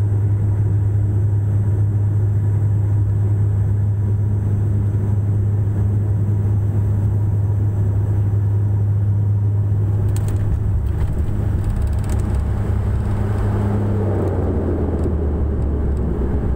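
Turboprop airliner heard from the cabin as it touches down and rolls along the runway: a loud, steady propeller drone with a low rumble. A few rattles come about ten seconds in, and near the end the drone drops in pitch as a rushing noise swells.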